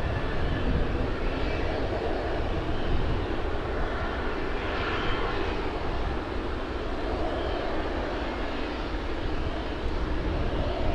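Jet airliner engines running steadily, a continuous rumble and hiss that swells slightly about halfway through.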